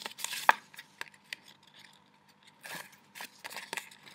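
Patterned paper panel being handled and taped on the back: short rustles, scrapes and clicks of paper and tape. The loudest comes about half a second in, with a quiet spell in the middle.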